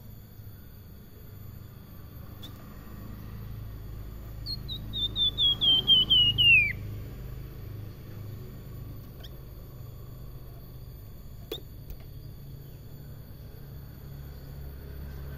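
Caged flamboyan songbird giving one quick run of about ten whistled notes, falling in pitch and growing louder, about five seconds in. A single sharp click comes later.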